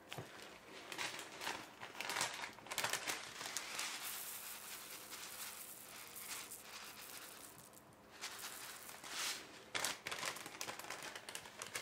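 Plastic bag crinkling and rustling as it is handled, with a steady shower of small foam beads falling onto slime for about four seconds in the middle.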